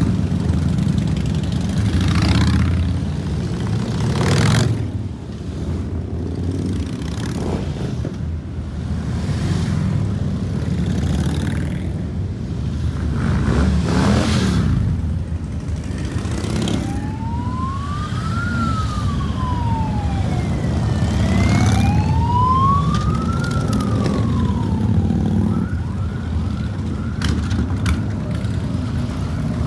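A procession of cruiser motorcycles, Harley-Davidson V-twins among them, riding past at low speed, engines rumbling and swelling as each bike goes by. A little past the middle a siren wails slowly up and down twice.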